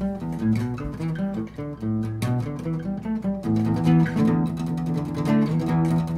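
Background music with plucked guitar: a steady run of quickly changing notes.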